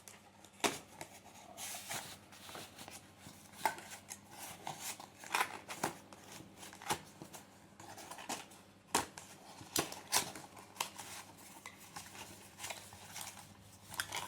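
Irregular clicks and taps of a small skincare serum bottle and its packaging being handled and opened.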